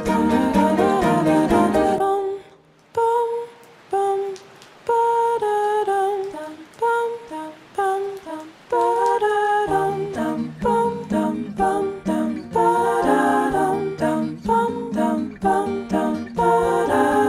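Background music: a light melody, with a sung or hummed line, that thins to sparse single notes about 2 s in and fills out again with a low bass and fuller accompaniment about 10 s in.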